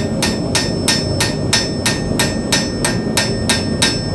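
Blacksmith's hand hammer striking hot 10-gauge mild steel plate in a steady rhythm, about three ringing blows a second, forging the fins. The blows stop just before the end, over a steady low rumble.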